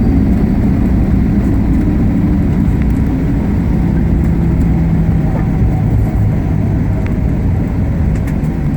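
Cabin noise inside a Boeing 737 during landing: a steady, loud rumble of the engines and airflow, with a low hum that drops in pitch partway through.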